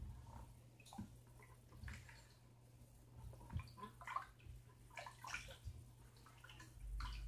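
Faint, irregular wet sloshing and tapping of cornstarch and water being stirred together into oobleck, over a steady low hum.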